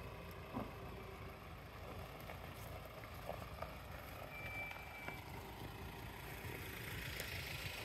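A 4x4 driving slowly off-road: a steady low rumble from the engine and drivetrain, with a few light knocks and a short high squeak about halfway through.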